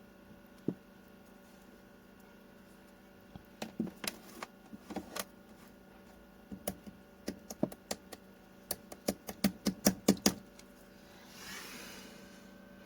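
Irregular run of sharp clicks and light taps in quick clusters, the fastest and loudest just before they stop, followed by a brief soft hiss, over a faint steady hum.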